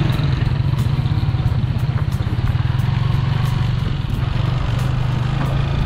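A vehicle engine running steadily with a low, even drone.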